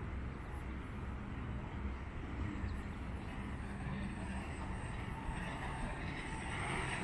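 Jet ski engine running out on the river, getting louder near the end, over a steady low rumble.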